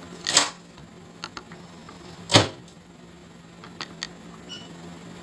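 A countertop microwave oven being handled: a short clatter about a third of a second in, then one sharp knock a little before halfway, the loudest sound, followed by light clicks of its keypad buttons and two faint short beeps near the end, over a steady low hum.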